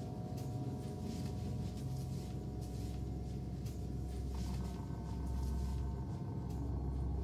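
Low rumbling drone of a horror film's soundtrack, with faint sustained tones above it; it swells slightly about five seconds in.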